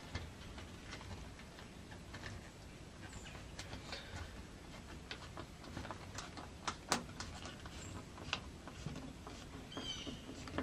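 Faint scattered clicks and ticks of a screwdriver driving the mounting screws of a new third brake light housing on a 2007 Chevy Silverado. A few short high chirps come in near the end.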